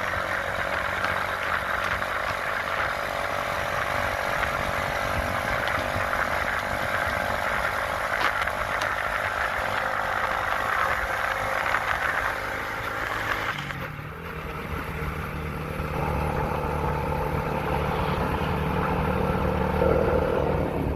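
A vehicle engine running steadily, its sound changing abruptly about 14 seconds in to a lower, steadier hum.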